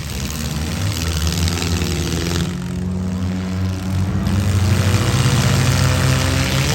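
Engines of four-cylinder demolition derby cars running and revving hard, several at once, getting a little louder about halfway through.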